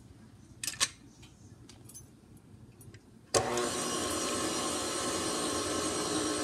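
An electric stand mixer is switched on about three seconds in. Its motor then runs at a steady whine while the wire whisk beats pancake batter with raw eggs. It is quiet before this except for a couple of brief clicks about a second in.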